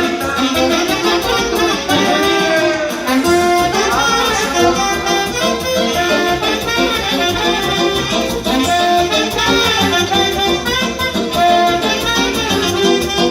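Instrumental Romanian ardeleană folk music from a band, with a melody line and no singing.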